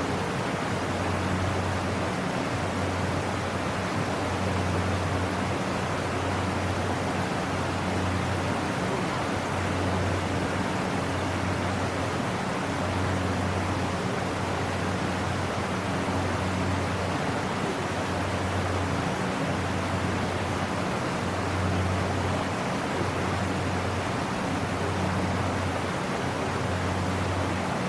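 Waterfall on a creek rushing steadily, with a low hum underneath that swells and fades every few seconds.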